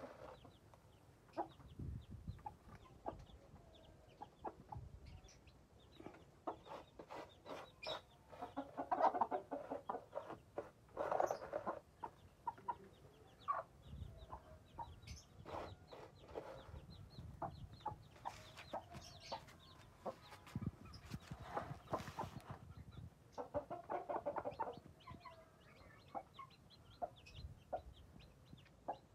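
A mother hen clucking in repeated bursts as she and her chicks feed, over many quick taps of beaks pecking at grain on the floor.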